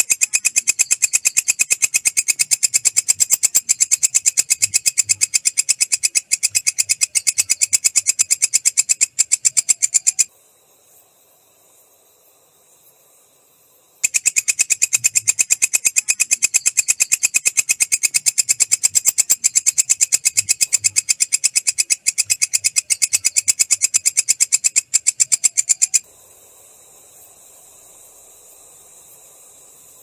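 Walang kecek katydid stridulating: a loud, very fast run of clicks in a long trill. The trill breaks off about ten seconds in, resumes about four seconds later and stops for good about 26 seconds in, leaving only a faint steady high tone.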